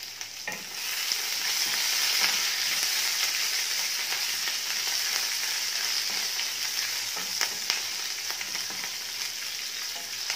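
Halved green chillies sizzling as they are sautéed in hot oil in a nonstick kadhai, the sizzle swelling about a second in, with scattered taps and scrapes of a wooden spatula stirring them.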